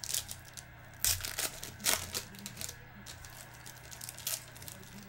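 Foil wrappers of Donruss football card packs crinkling and tearing as packs are ripped open and the cards handled, with a few sharp crackles, the loudest about two seconds in.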